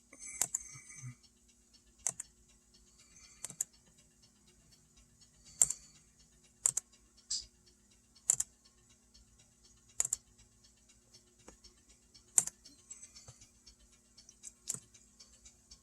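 Light, irregular clicks and taps of small plastic model parts being handled and set down, about a dozen sharp ticks spread a second or two apart.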